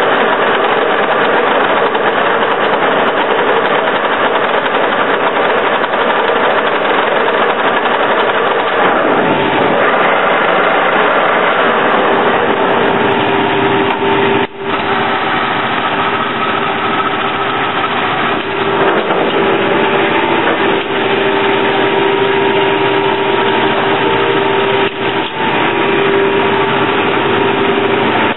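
Soviet 1K62 screw-cutting lathe running under power, its geared headstock giving a loud, steady mechanical clatter and hum. About halfway through, a steady whine of several tones comes in over it, with a brief dip.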